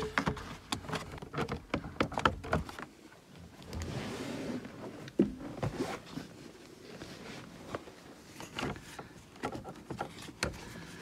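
Irregular plastic clicks, knocks and rubbing as an Audi TT Mk1 instrument cluster is handled and wriggled in its dashboard opening to reach the multi-plugs behind it. A longer scraping rustle comes about four seconds in.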